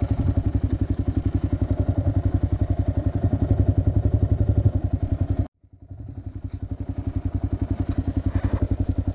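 Kawasaki KLR650's single-cylinder four-stroke engine running at low revs with an even, rapid beat. The sound cuts out abruptly a little over halfway through, then returns over about a second.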